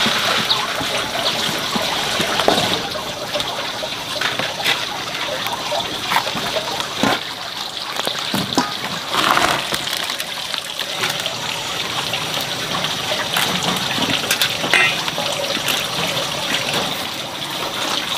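Water trickling and splashing, with many small clicks and knocks throughout.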